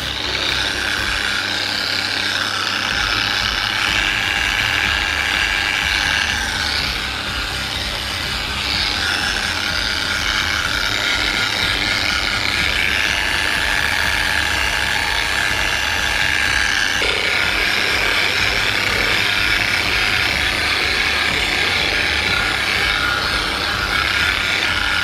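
Electric eccentric (dual-action) polishing machine running against a scooter's painted bodywork: a steady, high whine that shifts slightly in pitch a couple of times.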